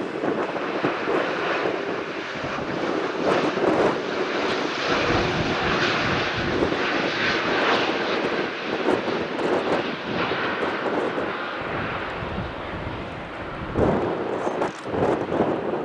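Airbus A340-500 airliner arriving, its four Rolls-Royce Trent 500 jet engines making a continuous engine noise.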